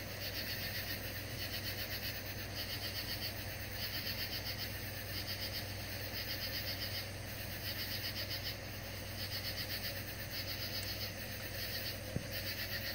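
Insects chirping in short, fast-pulsed trains that repeat about once a second, over a steady low hum.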